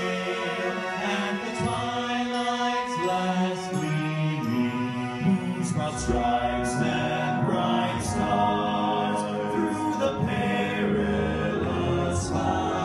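A group of singers singing in harmony, unaccompanied, holding long sustained chords.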